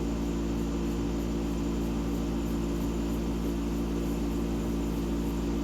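Hampton Bay (Fedders) 10,000 BTU window air conditioner running on low fan, a steady even hum that is mostly its compressor.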